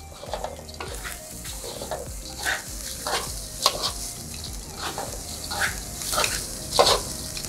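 A spatula scraping and knocking irregularly in a pan as rice seasoned with soy sauce is stirred, over a light, steady sizzle.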